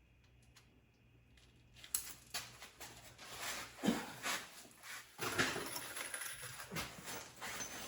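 Irregular scraping, knocking and rustling as the transmission and transfer case are handled on a transmission jack, starting about two seconds in.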